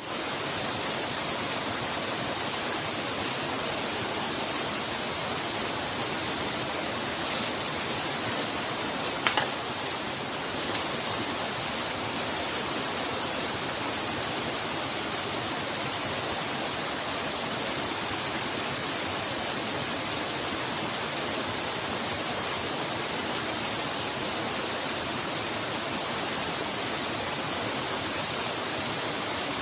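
Waterfall rushing steadily. A few short clicks or knocks between about seven and eleven seconds in, the sharpest about nine seconds in.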